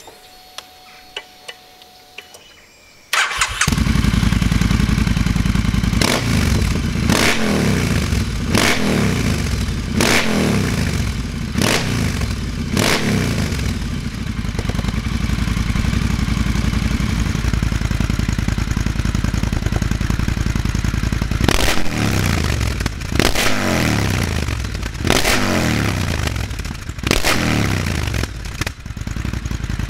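Triumph Thruxton 1200 parallel-twin engine breathing through a TEC Dueller 2-2 big-bore decat exhaust fitted with its loudest high-flow baffles. It starts about three seconds in, settles to idle and is blipped repeatedly, each rev dropping straight back to idle: a run of about six blips, a spell at idle, then about five more near the end.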